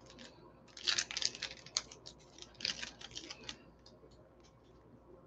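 Wrapper of a baseball card pack being torn open and crinkled by hand: a run of faint crackles and clicks for about three seconds, then a few scattered ticks near the end.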